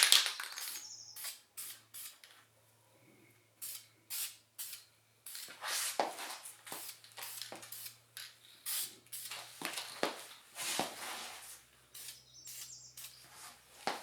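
VHT Wrinkle Paint aerosol can spraying a light tack coat, in many short sprays at first and then longer passes of a second or two, with a faint low hum underneath.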